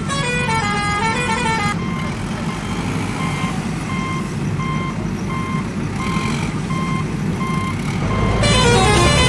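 Battery-powered toy vehicle's sound effects: a steady electronic engine rumble with a repeating beep, about two a second, like reversing beeps. A short electronic tune plays over it in the first couple of seconds and again near the end, a little louder.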